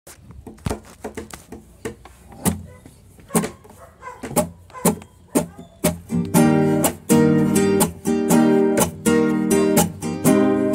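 Acoustic guitar playing: a sparse, quieter opening of single plucked notes, then from about six seconds in, full chords strummed in a steady rhythm.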